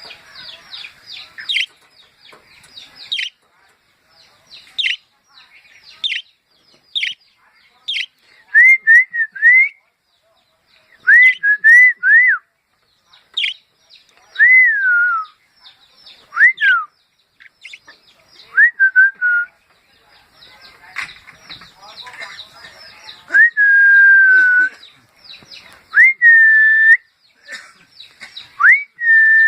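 Clear whistled notes, some short and gliding and a few held for about a second near the end, mixed with quick high falling chirps and clicks from a budgerigar.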